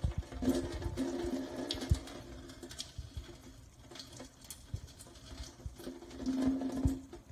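A thin stream of cloudy rice-rinse water pouring from a stainless steel saucepan into a stainless steel sink, with scattered small ticks.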